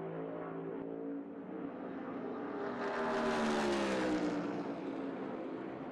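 Next Gen NASCAR stock cars' V8 engines running at racing speed and passing by, rising in level about three seconds in, with the engine pitch sliding down as they go past.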